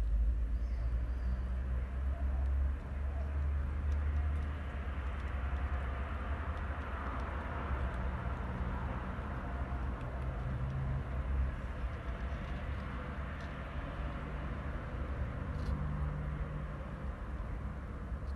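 A steady low rumble with a faint hum and hiss over it, with no distinct events.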